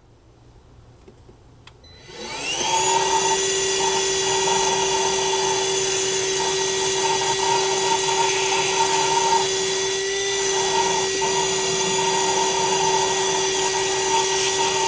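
Ryobi cordless 1-gallon wet/dry vac switched on about two seconds in, its motor spinning up with a rising whine and then running steadily at a high, even pitch as it sucks dirt out of an engine bay.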